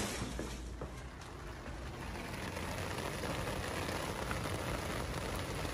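Steady hiss of falling rain, with a short knock right at the start.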